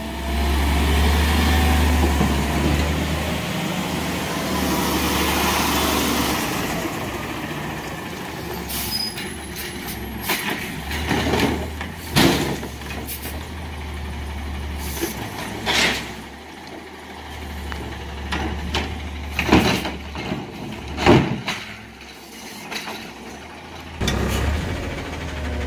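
Garbage truck running, its engine a steady low rumble, with a long hiss over roughly the first six or seven seconds, then a string of irregular clunks and bangs.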